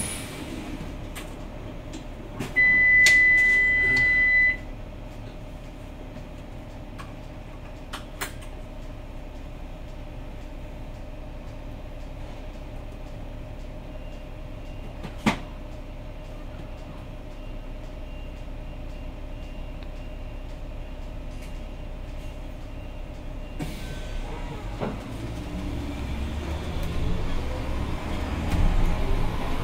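Interior of a Zhongtong LCK6113SHEVG bus: a steady low drivetrain hum, broken about three seconds in by a loud two-second electronic beep and later by a couple of sharp clicks. Near the end the low rumble grows louder as the bus gets under way.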